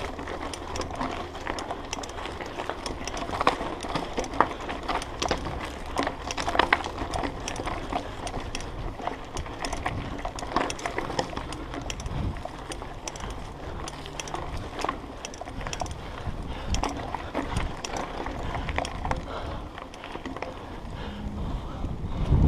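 Mountain bike riding over a rough dirt trail: the bike rattles and knocks with irregular clicks over the bumps, over steady tyre noise on loose ground.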